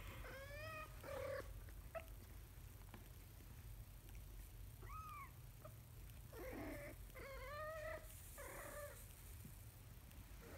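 A young kitten mewing in short, high-pitched calls: two in the first second and a half, one around five seconds in, and three more between about six and nine seconds.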